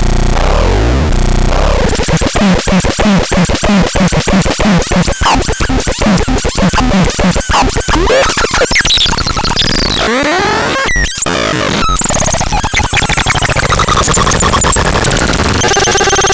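Electronic noise music: rapid stuttering pulses and clicks with swooping pitch glides, giving way about ten seconds in to smoother wavering, warbling tones.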